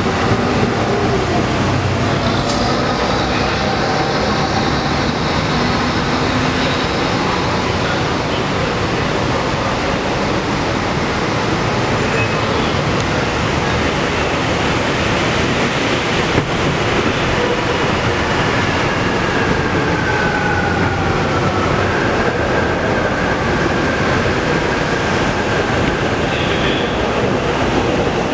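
Bombardier Innovia 300 monorail train running along its elevated concrete guideway on rubber tyres: a steady loud running noise, with the electric drive's faint whine sliding in pitch and then holding steady in the second half.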